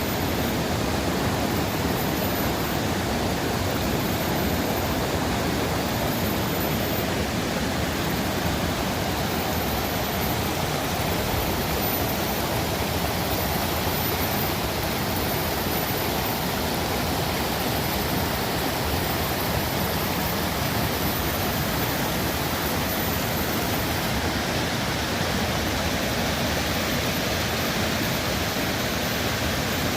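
Running water rushing steadily, an even, unbroken wash of sound.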